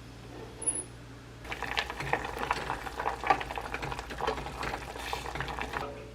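Kimchi fried rice sizzling and crackling in a frying pan as it is stirred. It starts about a second and a half in and cuts off abruptly near the end.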